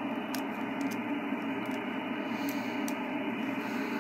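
Radio receiver static: a steady hiss with no signal, cut off above the voice band, from the SDR receiver's audio output while the loop-antenna amplifier is off and the band sounds empty. A few faint clicks sit on top of it.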